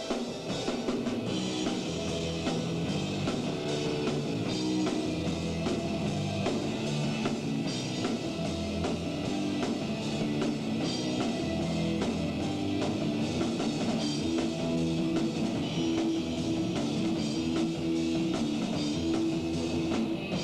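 Rock band playing live: electric guitars and a drum kit, with chord and note changes every second or so over a steady beat.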